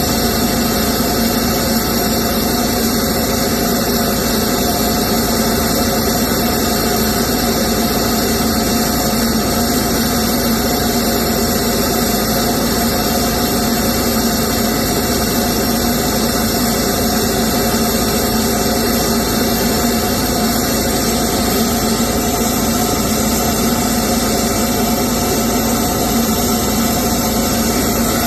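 Diesel engine running at a steady, even speed with no revving.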